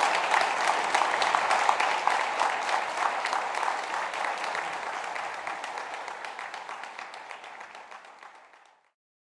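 Audience applauding, the clapping fading gradually and dying away near the end.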